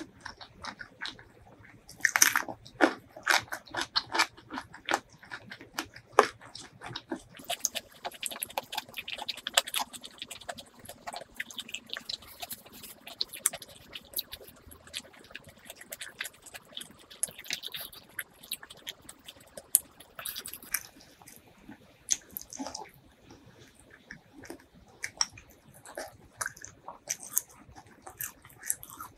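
Close-miked eating: a crisp bite into a raw cucumber slice about two seconds in, then steady chewing with many small crunches and wet mouth clicks.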